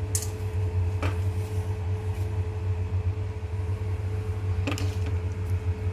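Steady low machine hum with a thin steady tone above it, and three faint clicks: one right at the start, one about a second in and one near the end.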